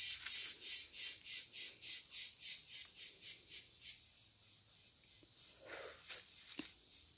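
An insect calling in a rapid, even train of high, buzzing pulses, about two and a half a second, which stops abruptly about four seconds in. A few faint knocks follow near the end.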